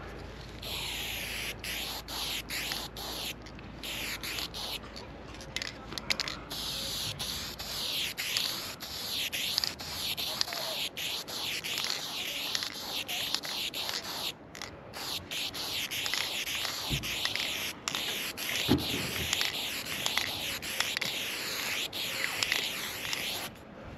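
Spray paint can hissing through a BIG Shotty ULTRA wide-stroke cap, sprayed in long strokes broken by short pauses. It starts about half a second in and stops just before the end.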